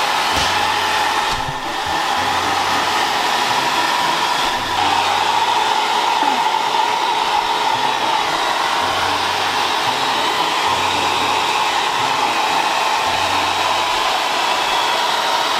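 Hair dryer running steadily, blowing a Jack Russell terrier's coat dry after its bath.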